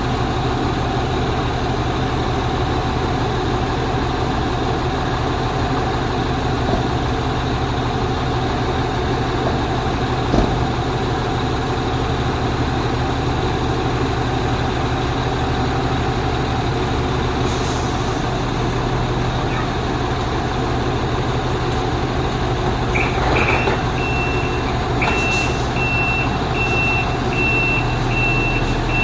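Heavy truck engine idling steadily. About three-quarters of the way through, a reversing alarm starts beeping at a steady pace, roughly one and a half beeps a second, and a couple of brief hisses come through.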